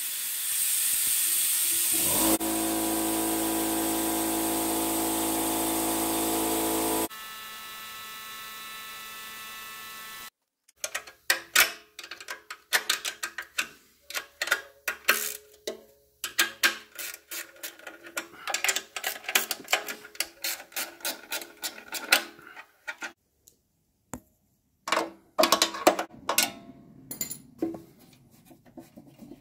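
Compressed air hissing through a fluid evacuator, then a steady machine hum that cuts off abruptly about seven seconds in. After a brief pause, a long run of irregular small clicks and clatter as hands and tools work on the Honda EZ2500 generator's metal cover.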